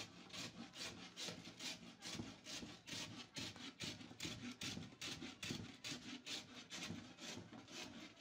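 Rhythmic scraping strokes, about three or four a second, cutting off suddenly at the end.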